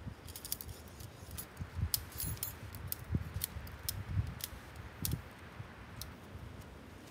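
Shock-corded tent pole sections clicking and clacking together as the poles are handled and fitted, a quick irregular series of sharp ticks over the first five seconds, with soft low thumps alongside.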